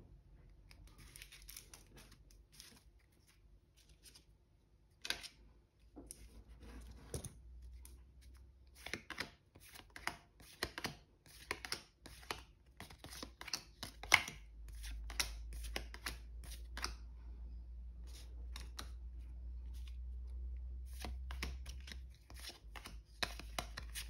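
Yu-Gi-Oh! trading cards being handled and dealt down onto a table: a quick, irregular run of soft card-on-card clicks, slides and slaps, over a low rumble that grows louder a little past the middle.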